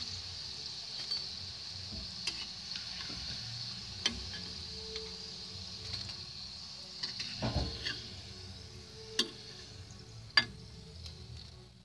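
Cauliflower kofte deep-frying in hot oil in a kadhai, sizzling steadily, while a metal wire skimmer scrapes and clinks against the pan as the fried balls are lifted out; a few sharp clinks, the loudest about ten seconds in, and the sizzling fades near the end.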